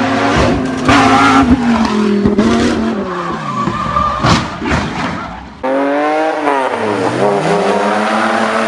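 A supercar's engine revving hard, its pitch climbing and dropping with throttle and gear changes. About halfway through the clip cuts suddenly to another sports car's engine revving down and back up, with tyre squeal rising near the end.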